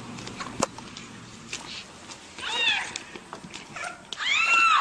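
A small animal crying out in distress under a deer's attack: two long, high-pitched wailing cries, one about two and a half seconds in and a louder one near the end.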